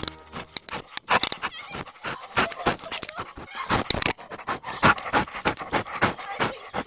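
A dog yipping and whining in a quick, irregular run of short sharp sounds.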